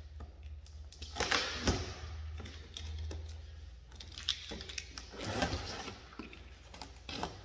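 Cardboard shipping box being opened by hand: packing tape picked at and slit with a knife, then the flaps pulled apart. Irregular scrapes, rips and clicks of cardboard and tape.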